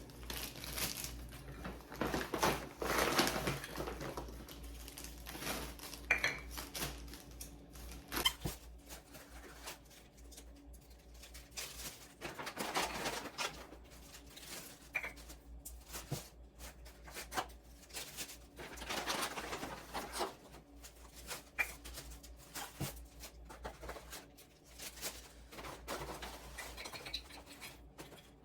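Plastic snack baggies rustling and crinkling in bursts while nuts are handled and portioned into them, with a few light clicks.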